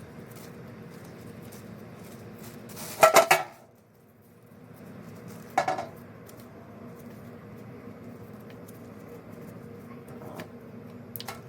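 Metal hand tools clinking as a ratchet and socket work the oil drain plug loose: a loud quick cluster of three metallic clanks about three seconds in, a shorter clatter near six seconds and a couple of light clicks near the end, over a steady low background noise.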